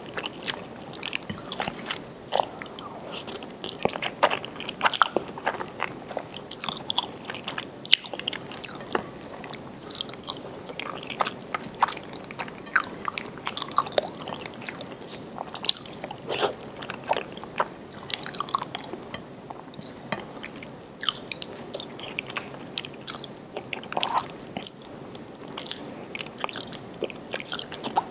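Close-miked mouth sounds of a person biting and chewing food: a dense, irregular run of sharp clicks and smacks.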